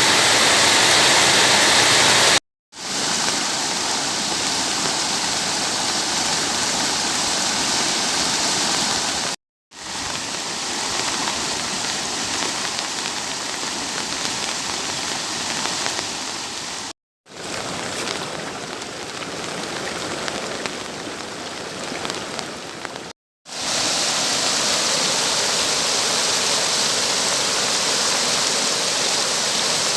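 Steady rush of fast-flowing floodwater, cut off briefly four times by short silent gaps.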